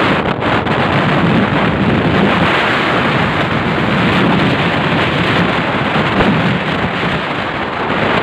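Steady wind and road noise from a moving vehicle, with wind buffeting the microphone.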